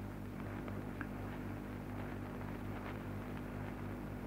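Steady low hum with faint hiss and an occasional tiny tick: the background noise of an old 1939 radio recording.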